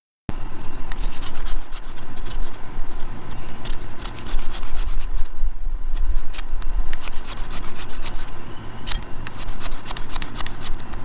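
Zippo fire-starting multi-tool's grater rasped back and forth over wood in quick strokes, scraping off tinder gratings.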